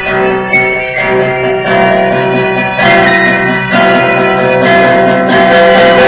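Music with guitar to the fore and held chords underneath, getting louder about three seconds in.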